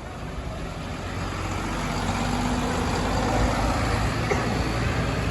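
Tour bus engine running as the bus approaches, getting steadily louder.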